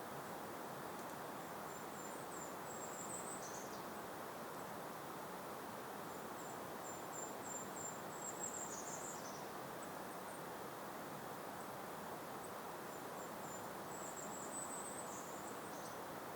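A small songbird sings a high, thin song three times: a quick run of short notes ending in a falling slur. Beneath it is a steady hiss of gentle breeze.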